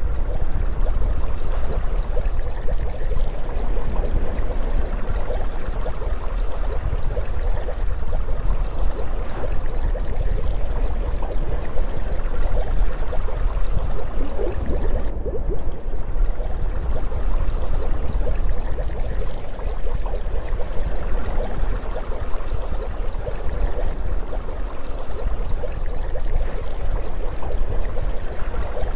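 Steady underwater ambience sound effect of moving water, without a break.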